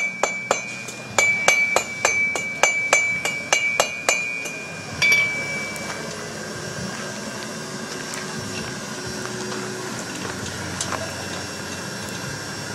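Hand hammer striking steel on an anvil, about three blows a second, each with a high ringing tone. A last, harder blow comes about five seconds in, and then only the steady hiss of the propane gas forge's burner is left.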